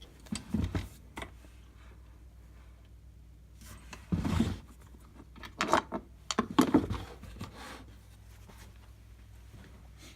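Handling noise from a chainsaw and its spiked cover plate being worked on: a few short knocks and scraping rubs in separate clusters, about half a second in, around four seconds, and between six and seven seconds, the last cluster the loudest.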